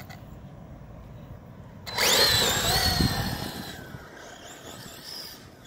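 Brushless electric motor of a Tekno MT410 RC monster truck (Arrma BLX185 on a 4S LiPo) whining as the truck launches at full throttle about two seconds in. The pitch climbs quickly, then holds, and the sound fades as the truck drives off over dirt.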